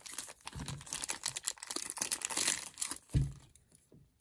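Clear plastic bag crinkling and rustling as a Beyblade is worked out of it by hand, with many small clicks and two low handling thumps, about half a second and three seconds in. The rustling stops about three and a half seconds in, leaving only a few faint clicks.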